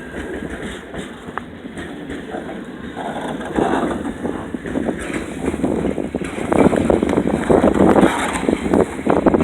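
Train passing a grade crossing, with strong wind buffeting the microphone. The noise grows louder in irregular surges in the second half.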